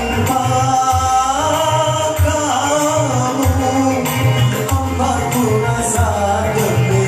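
A singer holding long sung notes over band accompaniment, with a steady low beat and jingling percussion.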